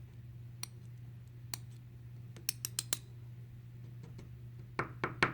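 Small, sharp metal clicks from a pick tool and the pins and wafers being pushed out of a disassembled American 1105 padlock. There are a few single ticks, a quick run of four about two and a half seconds in, and a louder cluster of clatters near the end.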